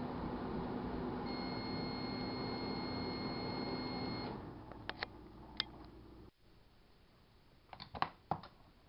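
A 1978 GE Dual Wave microwave oven running with a steady hum; about a second in, its end-of-cycle beeper sounds one long continuous tone for about three seconds, and the oven shuts off as the beep ends, signalling that the cooking time is up. A few sharp clicks follow near the end.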